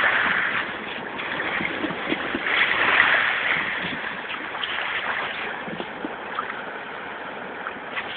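Seawater splashing and washing, swelling louder at the start and again about three seconds in, with small splashes scattered through it.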